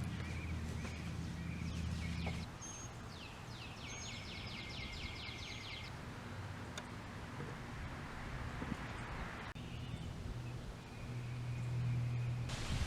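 Birds chirping, with a rapid trill a few seconds in, over a low steady motor hum that drops away after about two seconds and comes back faintly near the end.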